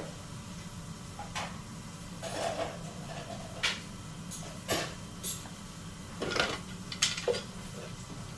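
Scattered light clinks and knocks of small hard objects being handled and set down, about eight at irregular intervals, over a steady low hum.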